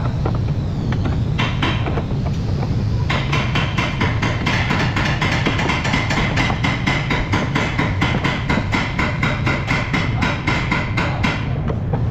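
Rapid repeated knocking, several knocks a second, like hammer blows on metal, over a steady low workshop hum. A higher hiss joins about three seconds in and drops away near the end.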